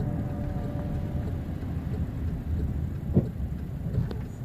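Car cabin noise while driving: a steady low rumble of road and engine, with one sharp knock about three seconds in.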